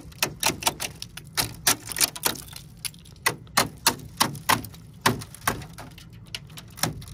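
Ice crunching and cracking: a quick, irregular run of sharp cracks, several a second, sparser toward the end.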